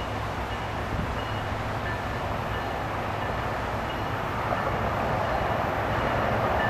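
Loram rail grinder train approaching while working the track: a steady low engine drone under a broad rushing grinding noise that grows louder toward the end.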